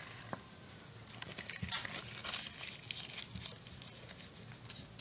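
A foil-lined paper packet being crumpled by hand: a dense crackling with many small clicks, starting about a second in and easing off near the four-second mark.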